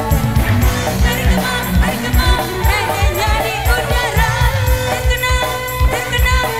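Live dangdut band playing through a PA system: drums and bass keep a steady, even beat while a woman sings the melody into a microphone.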